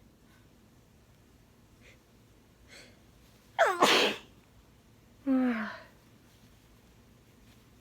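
A person sneezing into a tissue. A couple of faint quick breaths in lead to one loud sneeze, with a high voiced cry falling in pitch, about three and a half seconds in. A shorter voiced burst with falling pitch follows a second and a half later.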